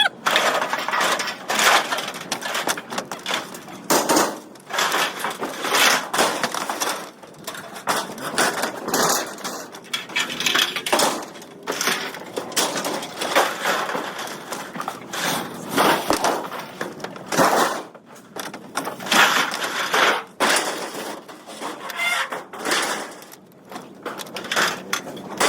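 Pieces of aluminum scrap from a sign being thrown onto a scrap pile, clanking and clattering in a run of irregular metal impacts.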